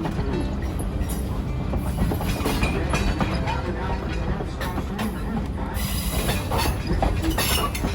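Steam excursion train rolling along the track: a steady low rumble from the cars, with the wheels clattering over the rail joints.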